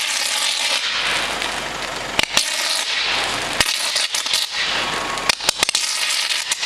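Electrical arc from a 230 V short circuit in an old oil-filled power cable on a utility pole: a continuous loud hissing crackle as the cable burns, broken by sharp pops, with a quick cluster of them near the end.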